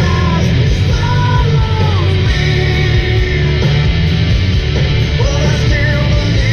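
Loud rock music playing as a backing track.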